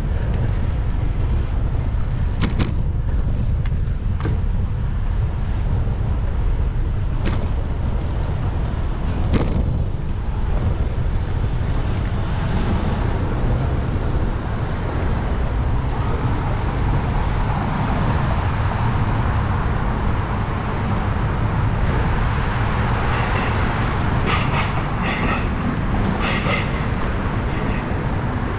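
Wind rumbling on the microphone while riding a bicycle through city traffic, with a few brief knocks in the first ten seconds. Traffic noise swells in the second half.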